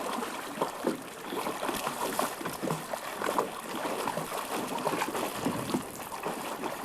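Water splashing and lapping in a run of small, irregular splashes.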